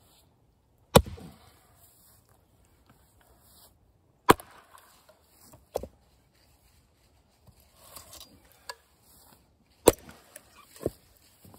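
Axe splitting freshly cut American persimmon rounds on a chopping block: three sharp, heavy chops, about one second, four seconds and ten seconds in, with lighter knocks between them.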